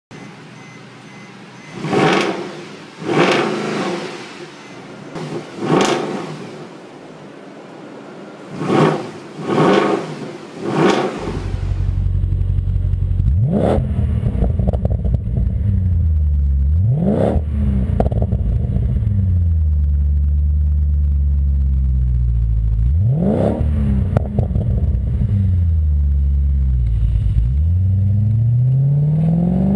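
A Mercedes-Benz C63 AMG V8 is blipped six times in short, sharp revs. About eleven seconds in it gives way to a Cadillac STS-V's supercharged 4.4-litre Northstar V8 running through a Magnaflow exhaust. The car is under way, engine pitch climbing and dropping several times.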